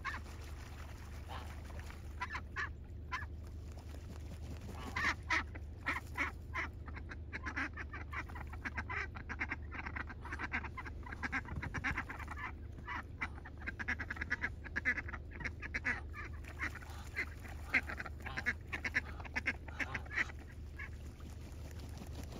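A flock of ducks and geese calling: many short, harsh calls in quick succession, a few at first, then many overlapping from about five seconds in.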